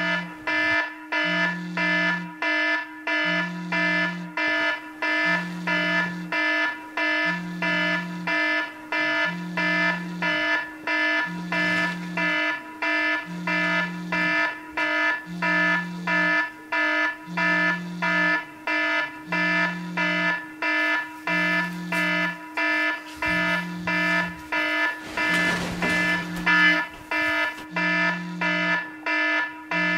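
Electronic alarm tone sounding without a break: a fast, repeating pattern of beeps over a low tone that pulses about every two seconds, starting suddenly and never changing.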